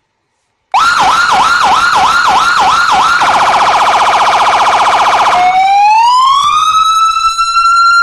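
A 200 W electronic siren amplifier driving a horn speaker, loud, switched between tones by remote. About three-quarters of a second in it starts a fast yelp of repeating sweeps, about three a second; a little past three seconds it changes to a very rapid warble; at about five and a half seconds it changes to a slow wail that rises and then holds high.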